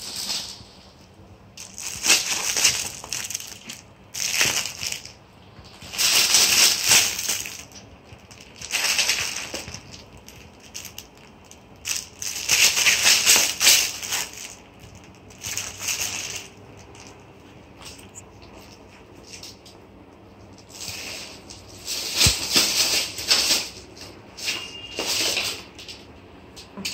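Crinkly rustling in repeated bursts of a second or two, from a cat wrestling with and biting a fabric toy.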